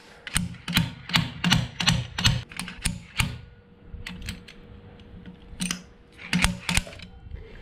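Slide hammer's sliding steel weight knocking against its end stop: a quick run of about nine sharp metallic knocks over the first three seconds, then a pause and three more spaced knocks. It is jerking the old pinion seal out of a differential housing with locking pliers clamped to it.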